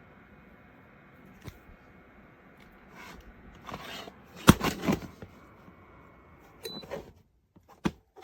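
Ceramic tower space heater running with a steady fan hum, while a few clicks and knocks of handling sound. Near the end a short high beep sounds and the hum stops, as when the heater is switched off at its control panel.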